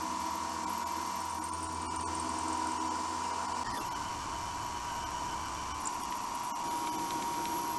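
Milling machine spindle running with an end mill cutting a metal connecting-rod blank held on a fixture plate: a steady whine with a high-pitched hiss above it. The low hum drops away and the high whine changes pitch about four seconds in.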